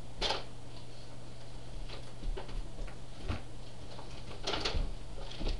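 Scattered rustling and knocking of gifts and packaging being handled, a dozen or so short sharp noises, over a steady low hum.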